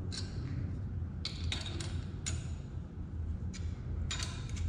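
Several light metallic clicks and clinks, scattered irregularly, as a thread tap and crescent wrench are handled against an aluminum engine case while the tap is being started in a drilled-out hole. A steady low hum sits under them.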